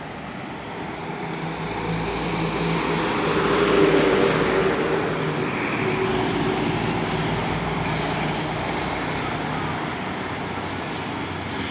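A large tour bus passing by. Engine and tyre noise swell to a peak about four seconds in, then settle into steady traffic noise.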